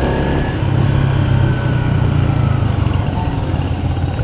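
Yamaha Sniper 150 motorcycle engine running steadily, heard through a GoPro's built-in mic, picking up a little in the first couple of seconds and easing off about three seconds in.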